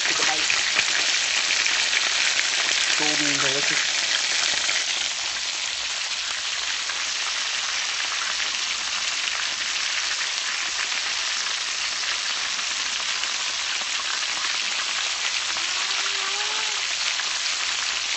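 Breaded chicken pieces shallow-frying in hot oil: a dense, steady sizzle full of fine crackles, a little louder for the first five seconds or so.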